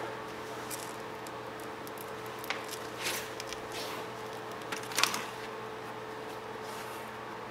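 Light clicks and scrapes of hands handling a brake pad and its wear sensor at the caliper, a few scattered knocks with the sharpest about three and five seconds in, over a steady faint hum.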